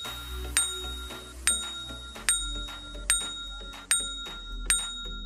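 Background music with a bright, ringing bell-like chime struck about every 0.8 seconds over low bass notes and a simple melody.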